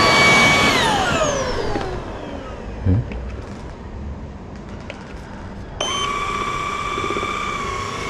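Cordless handheld vacuum cleaner motor whining steadily, then switched off just under a second in, its whine falling away as it spins down. A short thump near three seconds, and the motor whine starts again abruptly near six seconds.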